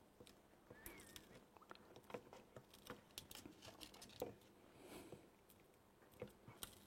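Faint scattered clicks and scrapes of a plastic spudger prying a battery away from a sat-nav's circuit board, ending in a sharper snap as the spudger breaks.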